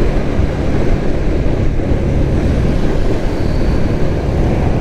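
Steady low rumble of wind and road noise on a helmet-mounted GoPro Hero5 Session's microphone while riding a motorbike.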